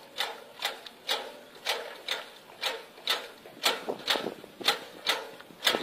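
Manual walk-behind rice transplanter being pushed through a flooded paddy: a steady rhythm of sharp clacks, about two a second, from the planting stroke and the operator's steps in the mud. There is no engine sound.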